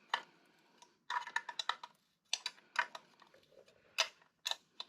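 Metal wrench clicking and clinking in short bursts against the dirt bike's chain adjuster bolt and nut as the adjuster is set.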